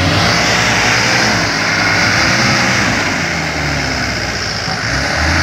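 Land Rover Defender turbodiesel engine pulling at low revs as the truck crawls cross-axled through a rutted ditch, its engine speed wavering gently up and down, with a steady hiss over it.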